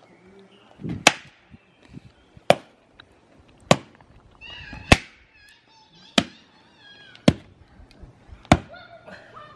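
Firewood being split with an axe: seven sharp strikes, about one every 1.2 seconds. A few high chirping calls come between the strikes around the middle.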